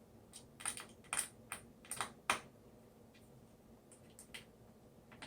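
Small sharp clicks and taps from handling tiny screws and a screwdriver on a plastic speaker panel. About six come in the first two and a half seconds, then a few fainter ones.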